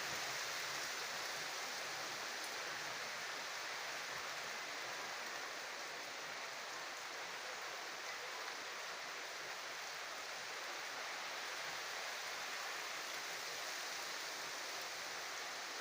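Steady rain from a tropical storm.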